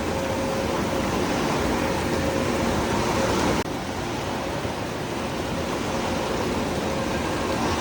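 Steady rushing roar of indoor waterpark ambience, with a faint steady hum running through it; the sound changes abruptly at an edit about three and a half seconds in.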